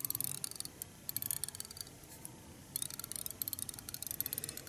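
Rapid, faint ticking that nearly stops for about two seconds near the middle and then picks up again.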